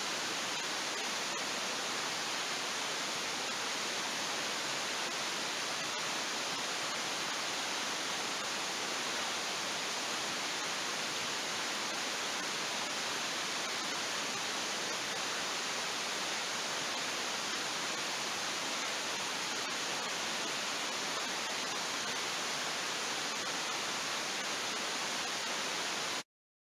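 Steady, even rushing noise with no crackles or tones, cutting off abruptly near the end.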